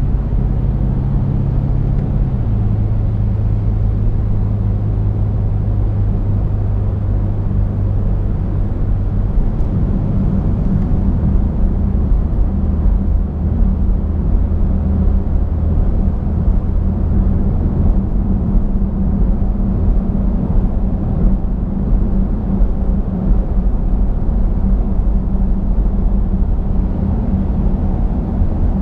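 BMW F90 M5's twin-turbo V8 cruising with its Capristo valved exhaust open: a steady low drone heard from inside the cabin, with road noise under it. The drone steps down in pitch twice, about two seconds in and about ten seconds in.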